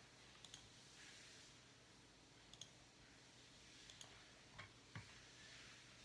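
About five faint, isolated clicks of a computer mouse and keys at a desk, some in quick pairs. The last two carry a duller knock.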